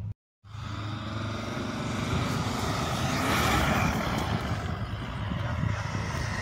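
An off-road SUV's engine running steadily under load, with a broad rush of noise swelling about three seconds in. The sound drops out for a moment right at the start.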